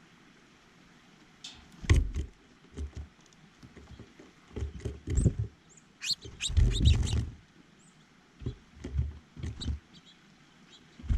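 Irregular bursts of knocking and scrabbling right at the feeder close to the camera, as birds land on it and peck at it, with a few short high bird chip notes.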